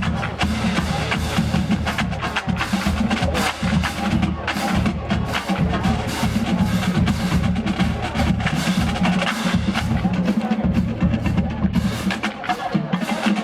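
Marching band drumline playing a cadence: snare drums, bass drums and rim clicks in a fast, steady beat, with no wind instruments standing out.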